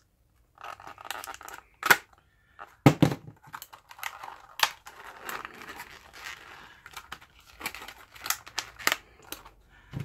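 Stiff plastic blister packaging being pried and torn open by hand, crackling and crinkling, with a couple of sharp cracks about two and three seconds in.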